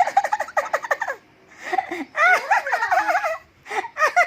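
Two bursts of rapid, high-pitched giggling laughter, one at the start lasting about a second and another about two seconds in.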